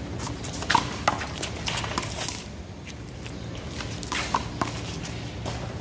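One-wall handball rally: the small rubber ball smacked by hand and bouncing off the wall and pavement, sharp smacks about a second in, a quick run of them around two seconds, and a few more near four seconds.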